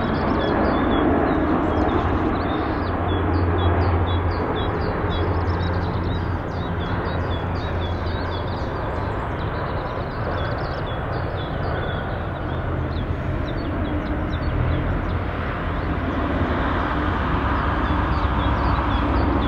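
Jet engines of an Airbus A320-family airliner running as it lands and rolls out down the runway, heard from a distance as a steady, low rumble.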